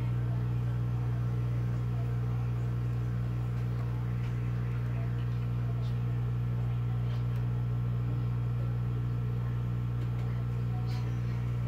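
Hot-air rework station blowing onto a TV mainboard's MCU chip to melt its solder for removal: a steady, constant low hum with a light hiss.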